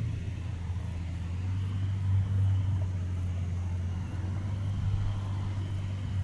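ICP Savannah S ultralight's propeller engine running at low taxiing power, a steady low drone.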